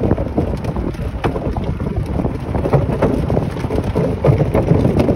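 Wind buffeting the microphone over the steady low rumble of a golf cart's tyres rolling across wooden bridge planks, with many faint clicks from the boards.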